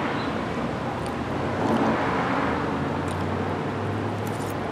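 Road traffic noise, with a motor vehicle's engine hum swelling about two seconds in as it passes.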